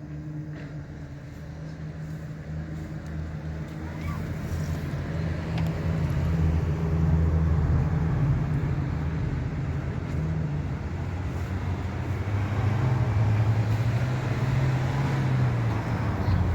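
Car engine and tyre noise heard from inside a moving car. The engine drone shifts in pitch, and the road noise swells about halfway through and again near the end as the car changes speed.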